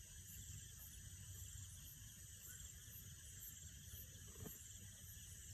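Faint chorus of night crickets, a steady high pulsing trill, with a faint tap about four and a half seconds in.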